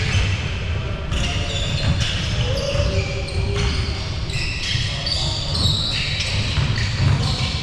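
Indoor basketball game: a ball bouncing on the court and many short high squeaks, with voices in the background.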